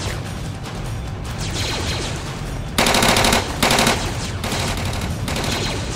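Two short bursts of automatic rifle fire, rapid shots in quick succession, about three seconds in, over a film music score.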